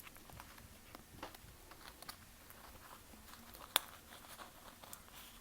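Faint handling noises of plastic file sleeves as small fabric samples are slid into their pockets: light scattered clicks and rustles, with one sharper click about two-thirds of the way through.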